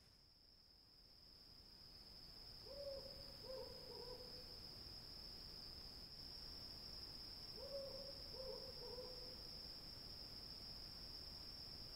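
An owl hooting twice, each call a quick run of three hoots, over a steady high trill of crickets, a night-time ambience.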